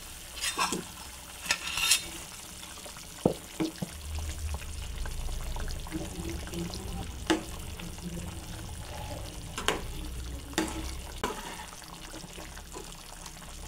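A metal ladle scraping fried paneer cubes off a bowl into a pan of simmering tomato gravy, then stirring them in, with scattered sharp clinks of the ladle against the pan over a soft bubbling.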